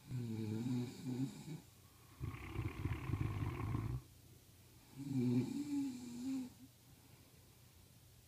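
Snoring from two sleepers, one of them a pregnant woman, taking turns. A wavering, pitched snore comes at the start, then a rougher, noisier snore from about two to four seconds in, then another wavering, pitched snore about five seconds in.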